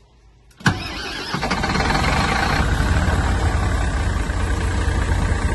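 Bus diesel engine starting: a sharp click, a brief crank of the starter, then the engine catches about a second and a half in and settles into a steady idle.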